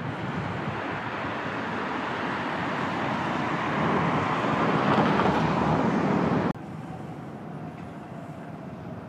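Road traffic: a vehicle passing close, its noise growing louder, then cut off abruptly about six and a half seconds in, leaving a quieter steady traffic hum.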